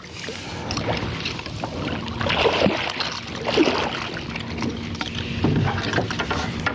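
A hooked catfish splashing and thrashing at the water's surface beside the boat as it is worked toward a landing net, with irregular splashes and knocks.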